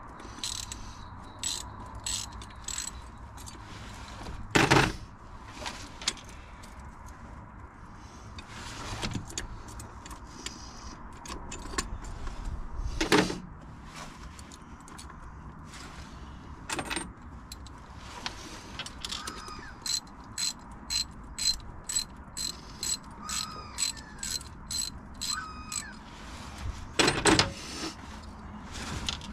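Socket ratchet wrench clicking in short runs as bolts are worked on the engine, about two clicks a second at its most regular, with three louder metallic knocks along the way.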